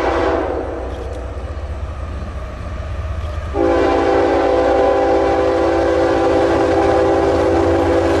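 Freight diesel locomotive's air horn sounding: a blast that cuts off about half a second in, then another long, loud blast from about three and a half seconds in, over the low rumble of the locomotives' diesel engines.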